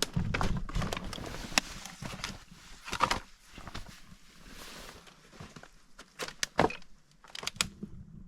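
Footsteps on a beach and driftwood being picked over and handled: irregular crunches and knocks, with a few sharp clacks in the second half.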